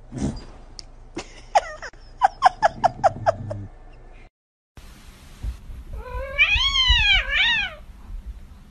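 Cats calling: a quick run of about seven short, falling chirps, then after a brief break two drawn-out meows that rise and fall in pitch, the second one shorter.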